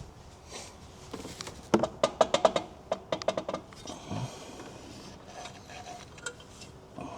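Metal-on-metal clanking and rattling from work on a car's exhaust downpipe and its fittings: a quick run of sharp, ringing knocks about two seconds in, then a second shorter run.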